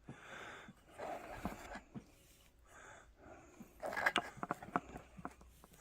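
Small packaging being handled close to the microphone: bursts of rustling, then a quick run of sharp clicks and taps about four seconds in.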